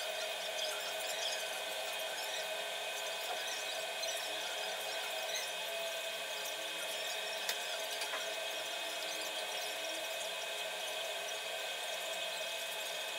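Cloth rubbing and wiping over an electric kick scooter's deck and body, with a few light clicks from handling it, over a steady background hum.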